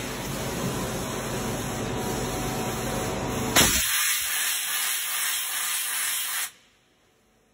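Steady hissing spray from a CNC turning machine at work, with a low rumble under it that stops after a sharp click about three and a half seconds in. The hiss cuts off suddenly near the end, leaving near silence.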